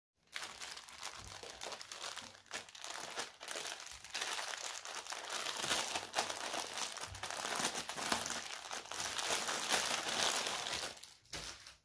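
Clear plastic poly bag crinkling and rustling as gloved hands press on it and pull it open around a folded fabric hoodie. Louder from about four seconds in, dying away shortly before the end with one more short crackle.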